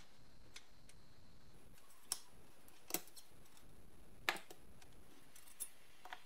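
Rusty metal parts of a 1960s Moulinette food mincer clicking and clinking as they are handled, its crank-and-blade assembly lifted out of the bowl and set down on the bench. About five short sharp clicks, the loudest a little past the middle.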